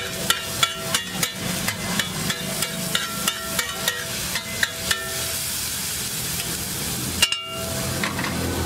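Metal spatula chopping and tapping on a large flat iron griddle: sharp, ringing metal clacks about three a second over the sizzle of frying egg and vegetables. The tapping stops about five seconds in, leaving the sizzle, with one more clack near the end.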